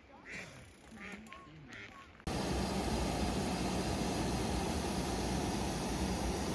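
Ducks quacking a few times, then about two seconds in a sudden change to a steady, loud rush of water pouring over a small weir.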